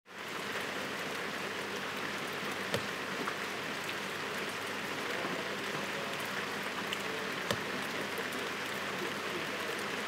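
Heavy rain pouring steadily onto a wet street and pavement, a dense even hiss that fades in at the very start. A few sharper drop hits stand out, twice clearly.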